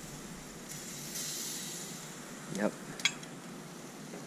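Sandhill crane breast and thigh meat sizzling on a gas grill grate, a steady hiss. A single sharp click of the metal tongs sounds about three seconds in.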